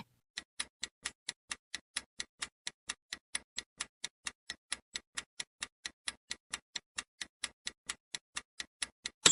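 Countdown-timer sound effect: a clock ticking evenly, about four or five ticks a second. A bell ding sounds right at the end, marking time up.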